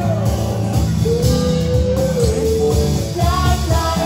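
Live band performing a song over a PA: women singing long held notes over acoustic guitar and bass.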